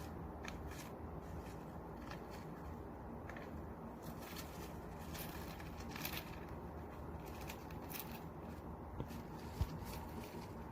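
Winter white dwarf hamster gnawing at and rummaging in a dried lotus seed pod: irregular soft crackling and scratching, with a faint low hum underneath. One soft knock near the end.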